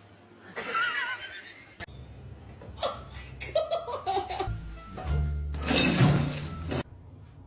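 Background music with laughing voices and short cries over it, then a loud noisy burst about six seconds in that cuts off suddenly.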